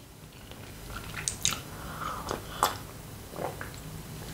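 Close-miked mouth sounds of a person drinking from a glass: a few swallows and small wet mouth clicks.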